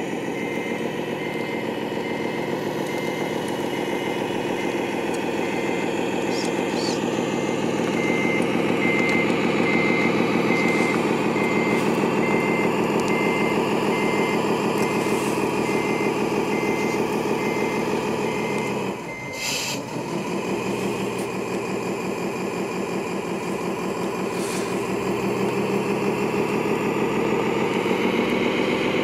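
An RC MAN truck's simulated diesel engine running steadily under load, with a reversing beeper sounding at an even pace. The beeping stops about two-thirds of the way through, where the sound briefly dips.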